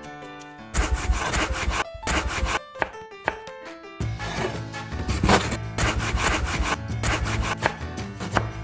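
Chef's knife slicing and dicing peppers on a wooden cutting board: a run of quick cuts with the blade striking the board, thickest from about 4 seconds on, over background music.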